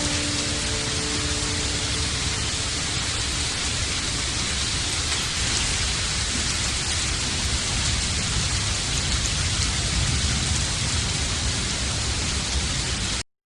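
Steady rain, a dense even hiss with no distinct drops standing out, cutting off suddenly near the end.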